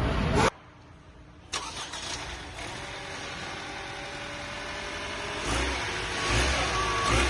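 Lexus NX200t's 2.0-litre turbocharged four-cylinder engine catching suddenly about a second and a half in after a brief quiet gap, then running, with a pulsing low beat setting in from about five and a half seconds in.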